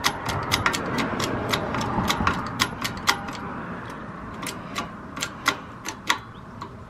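Hydraulic bottle-jack shop press being pumped to drive a frozen bearing into a Sur Ron Light Bee jackshaft: a quick, even run of sharp clicks, about four a second, that stops near the end.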